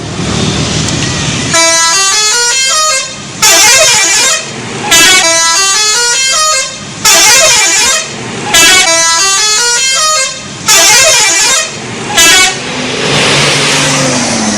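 Bus 'telolet' musical air horn playing a stepped multi-tone melody in about seven loud blasts, some long and some short, with brief gaps between them. The horn stops about two seconds before the end, leaving a low engine rumble.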